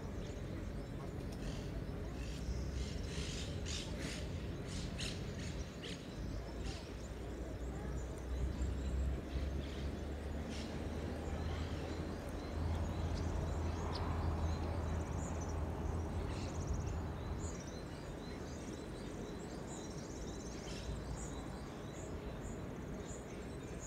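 Outdoor ambience: birds chirping in short calls, many in the first several seconds and sparser later, over a low steady rumble.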